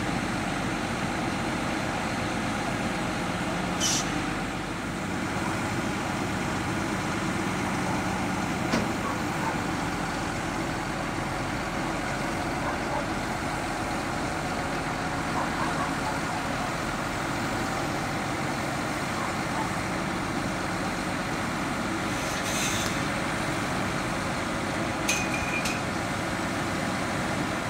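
Lorry diesel engine running steadily while its truck-mounted crane lifts a fibreglass pool shell, with a few short hisses about four seconds in and twice near the end.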